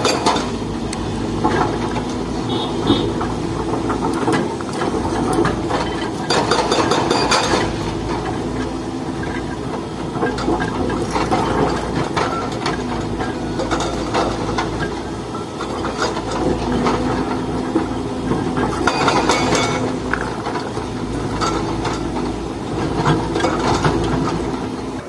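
Volvo EC300DL excavator working: its diesel engine runs steadily under load, with several short bursts of scraping and knocking, the loudest about six to seven and a half seconds in and again near nineteen to twenty seconds.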